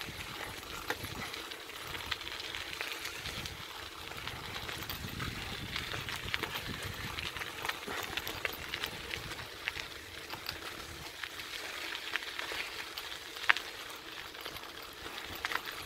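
Bicycle tyres rolling over a gravel path: a steady crunching with scattered clicks of small stones, and one sharper click near the end.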